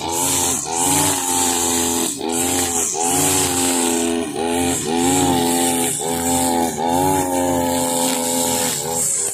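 Husqvarna 542RBS backpack brush cutter's two-stroke engine running at cutting speed as its nylon line cuts grass, with a steady high hiss. The engine's pitch sags and climbs again every second or so as the throttle is eased and reopened and the line bites into the grass.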